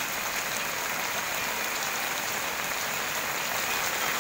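Steady hiss of fast-flowing floodwater rushing along a flooded village street.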